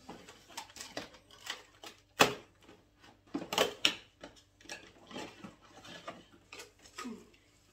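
Handling of a cardboard advent calendar and a Pringles can: a run of clicks, knocks and rustles as a door is pushed open and the can is pulled out, with one sharp knock about two seconds in and a cluster of knocks around three and a half seconds.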